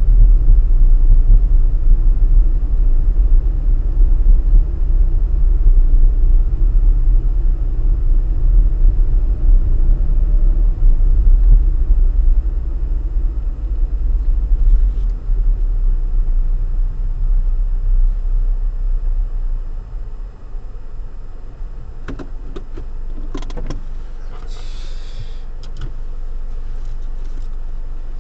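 Car road and engine rumble heard inside the cabin through a dashcam, loud at first and fading over several seconds as the car slows to a crawl. Near the end come a few light clicks and a short hiss.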